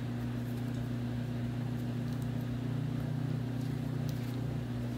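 Steady low electrical hum that does not change, with a few faint soft ticks from hands working a ball of soda bread dough.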